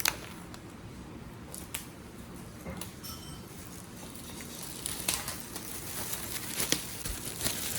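Pull tab being torn along the wrapping of a MacBook Pro box, with faint crackling and rustling of the wrap, busier from about five seconds in.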